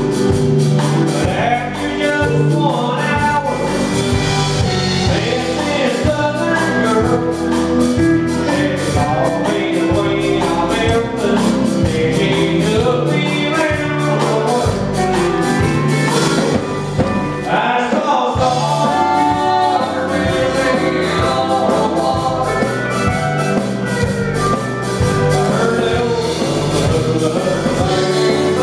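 Live country band playing a song: a man singing over strummed acoustic guitar, electric bass and a steady drum beat.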